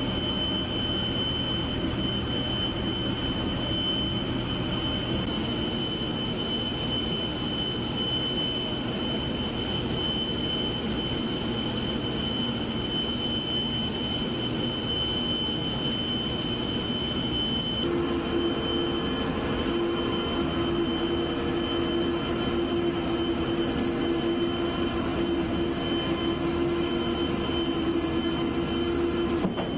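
Steady machinery noise with a thin, high, continuous whine from an aircraft cargo loader moving a netted vehicle pallet on its roller deck. A lower steady hum joins about two-thirds of the way in.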